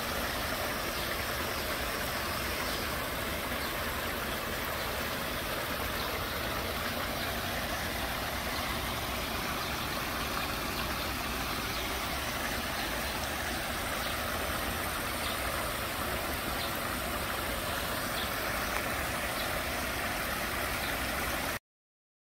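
Water running and splashing down a small cascade over stacked limestone ledges: a steady rush that cuts off suddenly near the end.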